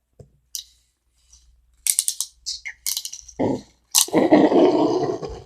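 A child making funny mouth noises close to the microphone: a few clicks, then a run of short spitting, hissing bursts, and about four seconds in a longer raspy blowing sound.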